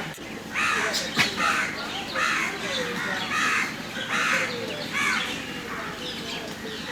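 Crows cawing over and over, a harsh call a little more than once a second. About a second in there is one sharp, short burst.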